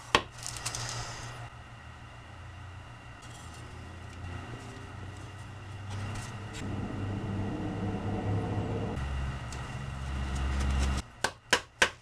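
Wooden cedar boards handled and fitted together on a metal workbench: a sharp knock as a board is set down at the start, then a few quick clicks near the end, over a steady low hum that stops shortly before the clicks.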